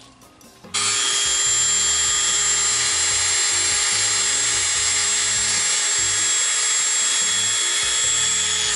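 Dremel rotary tool running with a steady high-pitched whine, sanding out a hole in a cast resin chess piece. It switches on suddenly about a second in and starts to spin down right at the end.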